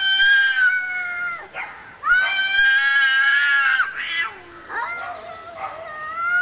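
Angry cat yowling: three long, drawn-out wails, each held at a steady pitch, the last one starting lower and rising near the end.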